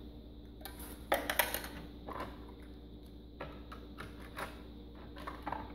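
Light clicks and clatter of hard plastic toy parts being handled: a small luggage tag being fitted into the top compartment of a plastic toy jet. A quick run of clicks comes about a second in, then single clicks every second or so.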